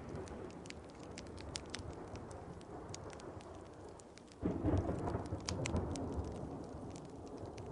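Thunder rumbling over steady rain, with a wood fire crackling in sharp little pops throughout. A louder roll of thunder breaks in suddenly about four and a half seconds in and slowly dies away.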